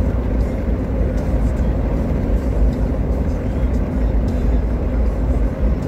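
Steady low road and engine rumble inside the cabin of a 2000 Toyota 4Runner cruising down a highway.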